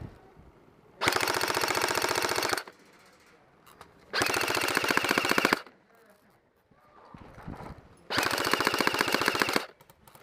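Airsoft electric carbine (Airsoft GI G4-A5 Dune Knight) firing full-auto, three bursts of rapid clicking shots, each about a second and a half long.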